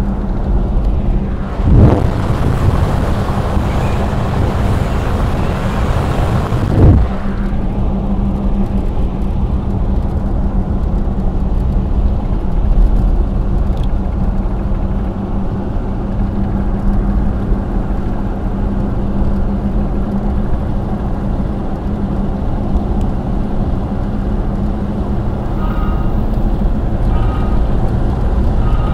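Car driving along a rough, patched asphalt road, heard from inside the cabin: a steady engine drone and tyre noise. About two seconds in a rushing noise swells up for around five seconds, with a sharp thump at its start and another at its end.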